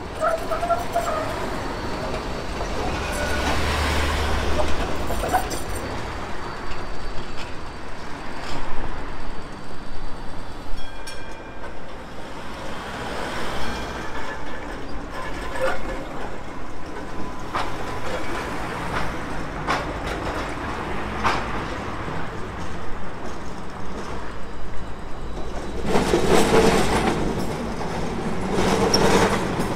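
Melbourne street trams running on the rails, with the clatter of steel wheels over track joints and street traffic in the background. Near the end a vintage W-class City Circle tram passes close and the clatter grows louder.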